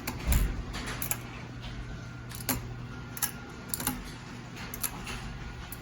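Hunter Westminster ceiling fan's motor humming steadily while its pull-chain speed switch is worked, giving irregular sharp clicks and taps, with a heavier knock just after the start.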